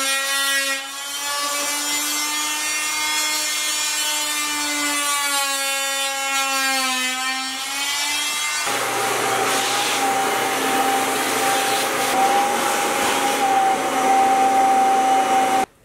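A small electric air compressor running with a steady, slightly wavering whine, which changes abruptly about nine seconds in to a wet/dry shop vacuum running: a steady whine over a rush of air.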